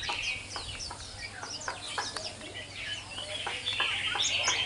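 Japanese white-eye singing a long, rapid twittering song of thin, high chirps, many falling in pitch, mixed with mimicked phrases typical of a skylark's song.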